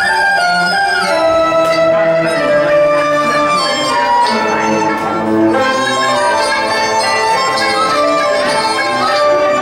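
Teochew opera music from a live traditional ensemble, with bowed fiddles and a reedy wind instrument carrying a melody in held, gliding notes.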